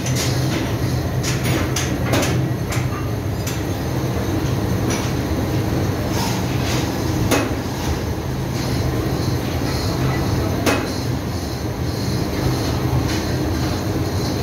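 Steady low engine-room machinery noise, with scattered sharp metallic clicks and knocks, a few of them louder, near the start, about seven seconds in and near eleven seconds.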